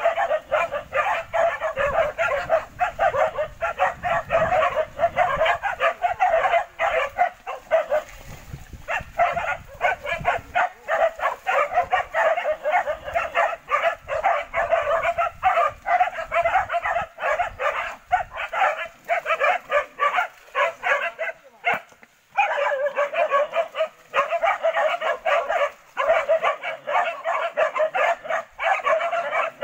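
Several hunting dogs barking and yelping nonstop and overlapping: a pack baying a wild boar it has brought to a stand. The barking breaks off briefly about two-thirds of the way through, then resumes.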